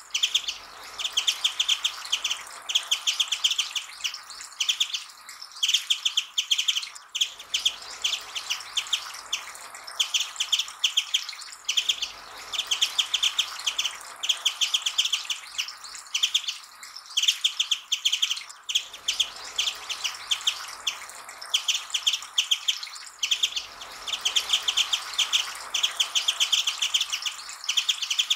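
Japanese white-eye singing: quick twittering phrases of rapid high notes, repeated one after another with short gaps.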